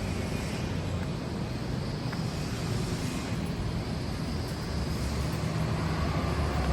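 Steady low rumble of city street traffic, passing cars and engines blending into one even roar of noise.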